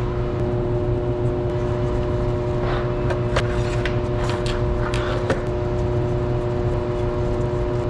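A steady machine drone with several held hum tones runs throughout. Around three seconds in and again between four and five seconds in come a few light clicks and metal rattles as the power supply's metal case plates are fitted back together.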